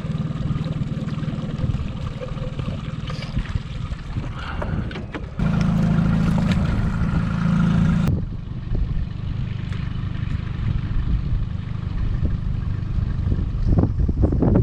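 Boat motor running steadily at slow trolling speed, a low hum with water and wind noise over it. It is louder for about three seconds in the middle, starting and stopping abruptly.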